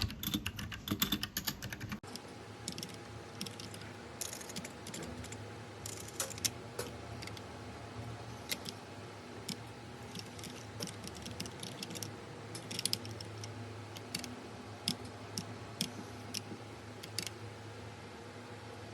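Keys pressed on a Magic-Refiner mechanical gaming keyboard with red linear switches. A quick run of keystrokes comes in the first two seconds, then scattered single key clicks and short bursts.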